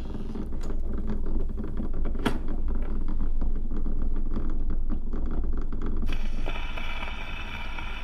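Vinyl record surface noise: a low rumble with irregular crackles and pops, one sharp pop a little over two seconds in. About six seconds in, faint steady higher tones join the crackle.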